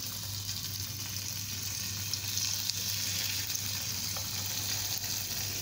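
Marinated fish pieces being dropped into hot oil in a pan, the oil sizzling steadily as they fry.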